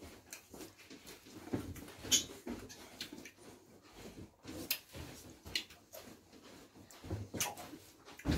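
Close-miked eating sounds: people chewing and biting into spicy turkey wing meat, with irregular wet mouth noises and short breaths.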